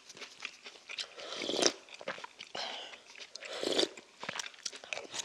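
Ramen noodles being slurped in a few short noisy pulls, with chewing and small utensil clicks in between.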